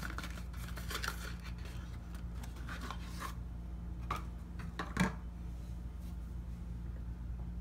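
Paper wrapper of a bar of Tone cocoa butter soap rustling and crinkling as it is pulled off, for about the first three seconds. Then it goes quieter, with a soft knock about five seconds in as the bare bar is handled over the sink, over a steady low hum.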